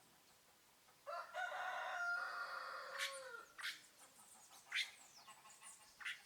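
A rooster crows once, starting about a second in and lasting about two and a half seconds, ending on a falling note. Short, sharp falling chirps of small birds follow.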